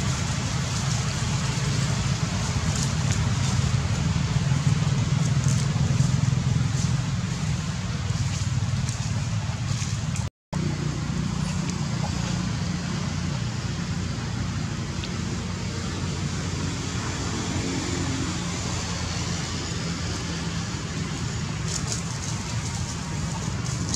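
Steady low rumble with a hiss over it, broken by a sudden brief dropout about ten seconds in.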